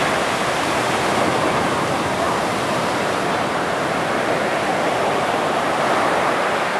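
Surf breaking and washing along the shore, a steady loud rush that eases slightly near the end.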